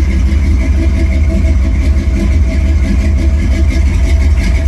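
Truck engine idling steadily, with a low rumble and a constant high whine over it.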